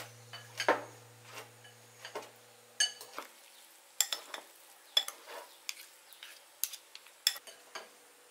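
A metal spoon and wooden chopsticks mixing seasoned raw sliced beef and onion in a ceramic bowl, clinking against the bowl at irregular intervals.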